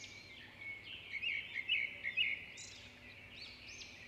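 Coriander, Kashmiri red chili and dried fenugreek sizzling gently in oil in a karahi over low heat, with short repeated bird chirps over the sizzle.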